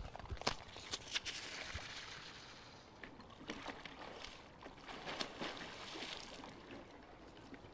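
Water splashing and sloshing in a hole in lake ice as a person hauls himself out onto the ice, with several sharp knocks and scrapes; the loudest come about half a second and a second in.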